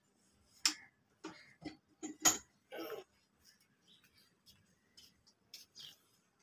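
A handful of short, light clicks and taps, scattered over the first three seconds with the sharpest a little over two seconds in, then a couple of fainter ticks near the end.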